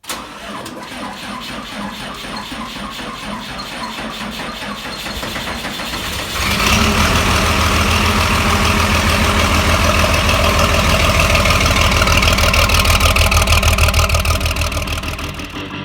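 Large engine cranking over with a fast, even rhythm, then catching about six seconds in and running loud and steady.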